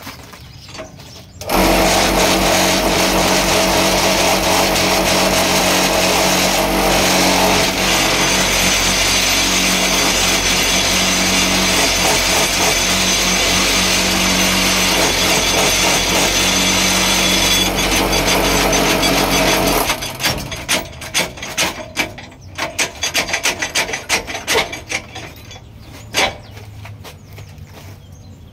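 Electric vibrator motor of a small paving-block (cabro) machine switched on about a second and a half in, running with a steady hum and rattle for about 18 s as it shakes the concrete down in the closed moulds, then cutting off suddenly. After it stops, a run of irregular metal knocks and clatters from the steel press and moulds being worked.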